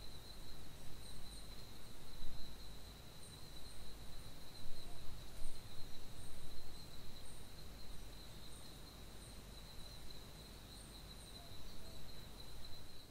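Night-time insect chorus, likely crickets: a steady high drone with faint, intermittent chirps above it, over a low, even background rumble.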